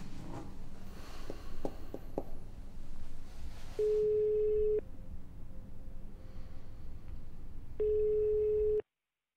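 Telephone ringback tone on a phone call, the line ringing at the other end: a steady beep about a second long, heard twice about four seconds apart, after a few soft clicks. It cuts off suddenly just after the second beep.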